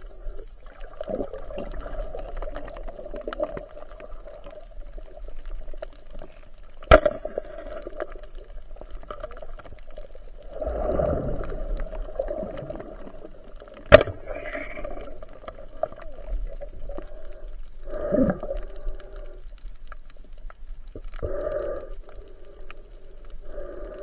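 Muffled underwater sound picked up by a submerged camera: a wavering hum with gurgling that swells now and then, broken by two sharp knocks, one about a third of the way in and one past the middle.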